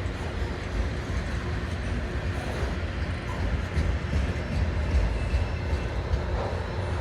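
Loaded autorack freight cars rolling past on the rails: a steady low rumble of wheels on track, with faint clicks mixed in.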